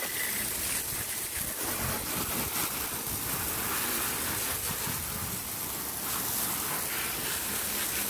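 Garden hose spray nozzle jetting water onto a car's wheel and bodywork, a steady spraying and splashing noise.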